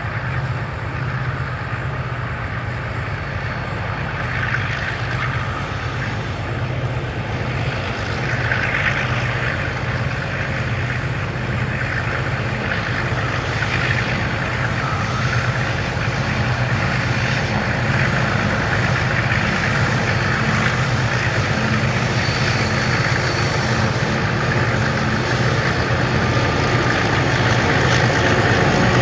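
Diesel locomotives of a grain train, an EMD-powered lead unit and an ALCO 48 class, working up a grade: a steady, deep engine drone that grows slowly louder as the train approaches.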